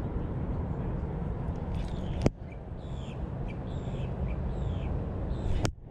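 Wind rumbling on the microphone, with birds calling in the background and two sharp clicks, one about two seconds in and one near the end.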